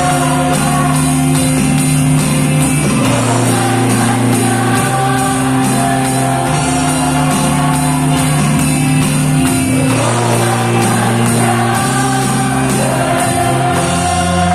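A small band playing a worship song: an electronic drum kit keeps a steady beat, an electric bass holds low notes that change every second or two, and digital piano and keyboard play chords over it.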